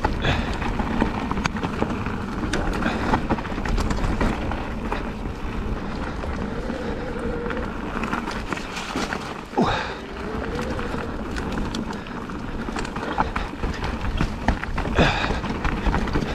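Strong wind buffeting a helmet-mounted camera's microphone on a moving e-mountain bike, a continuous rumble over the clatter and knocks of the bike and tyres running over rocks and roots.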